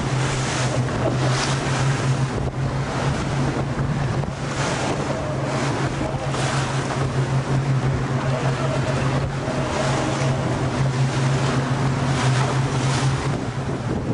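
Boat engine running steadily at a low drone under heavy wind buffeting the microphone and repeated washes of waves and spray against the hull in rough, stormy seas.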